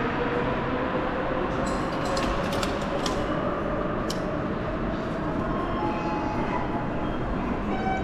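Sapporo subway Tōhō Line rubber-tyred train running, its motor whine rising slowly in pitch as it picks up speed, over a steady rumble. A few sharp clicks come about two to four seconds in.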